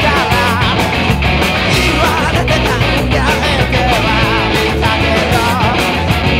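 Garage-rock band track with an electric guitar played along to it, strummed hard in a fast, choppy rhythm over the drums and bass, with a wavering melody line above.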